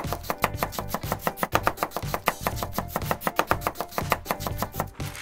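A plastic toy knife chopping fast on a toy strawberry and a plastic cutting board, a quick even run of light tapping clicks at about seven a second.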